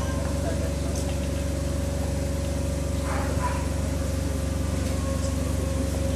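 Steady low hum made of several even pitched layers, with a thin steady whine above it, and a couple of faint short sounds about three seconds in.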